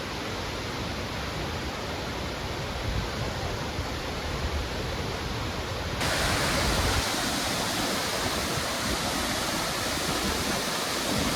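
Waterfall: a steady rush of falling water that turns suddenly louder and more hissy about six seconds in.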